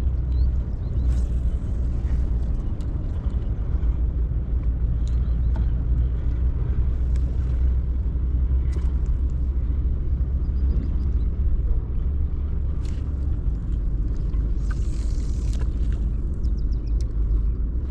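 Steady low rumble of wind buffeting the microphone outdoors, with a few faint high chirps and small clicks over it.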